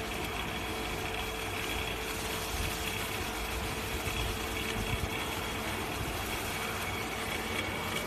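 Steady hum of a wire stripping and twisting machine running idle, with a constant high whine over a low rumble.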